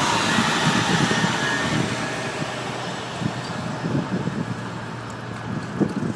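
Road traffic noise: a vehicle's tyre and engine sound, loudest at first and fading over the next few seconds, with an irregular low rumble underneath.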